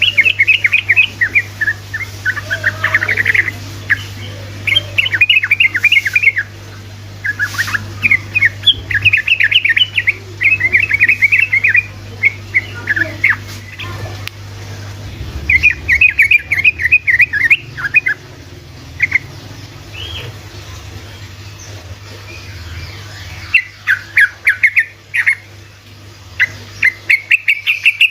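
Yellow-vented bulbul (trucukan) singing its fast rattling 'ropel' song: runs of rapid, closely spaced notes, each one to two seconds long, with short pauses between, over a steady low hum.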